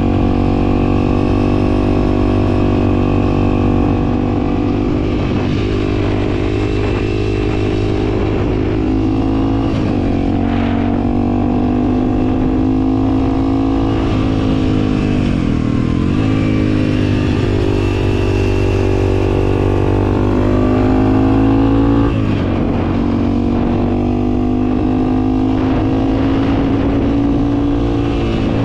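Honda CRF300L's single-cylinder four-stroke engine running as the bike is ridden. Its note climbs and falls with the throttle and gear changes, dips low about halfway through, climbs again, then drops suddenly a few seconds later.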